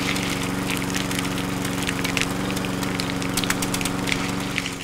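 Small electric motor of a model tractor running steadily, belt-driving a miniature grinder, with a dense run of sharp clicks and rattles as beans are crushed into powder.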